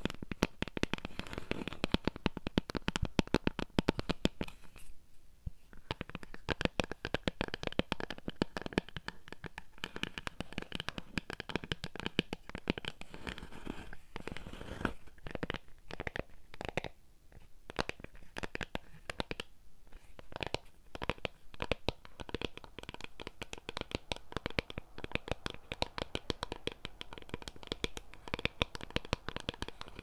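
Fingernails scratching and tapping rapidly right at a mini microphone: a dense run of close, crisp scrapes and clicks with a few brief pauses.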